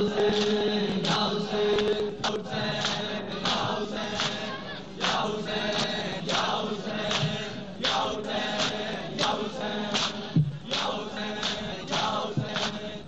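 Men chanting a Shia noha together in a lamenting melody. Hands beat on chests (matam) in a steady rhythm over it, roughly three beats every two seconds.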